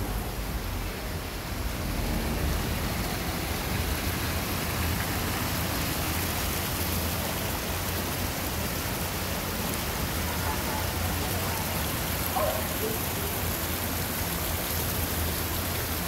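Water splashing down a small cascade of stone steps into a river channel, a steady rushing.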